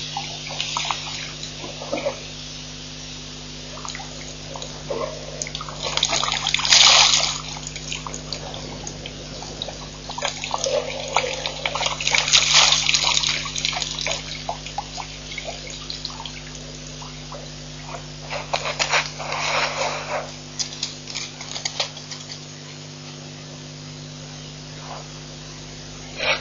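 African elephant drinking at a waterhole: water splashing and gurgling around its trunk, in three louder bursts, over a steady low electrical hum.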